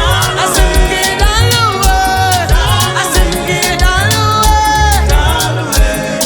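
Live band playing an upbeat praise song with a steady drum beat and heavy bass, while voices sing long, sliding notes over it.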